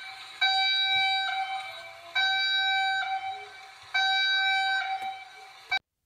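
Burundi emergency alert alarm: a loud, horn-like two-part tone that repeats about every 1.8 seconds, then cuts off suddenly near the end.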